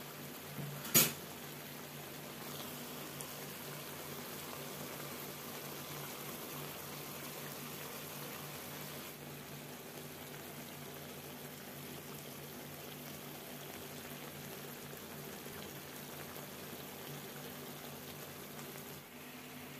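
Chicken masala gravy simmering in a steel kadai, a steady soft bubbling, with one sharp click about a second in.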